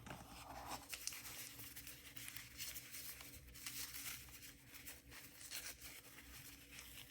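Faint tearing and crinkling of tape and wrapping being pulled off a packed item, with scattered small crackles.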